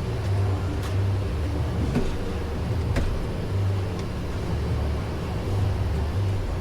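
A vehicle engine running, a steady low rumble that swells and fades about once a second, with a few faint clicks.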